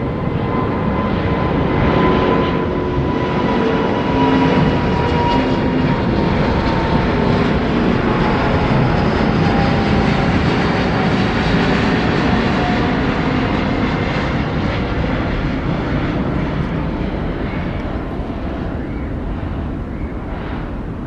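Airbus A350-941's Rolls-Royce Trent XWB turbofan engines climbing out after takeoff: a loud jet roar with a whining tone that slowly drops in pitch as the airliner passes and climbs away. The roar eases off over the last few seconds.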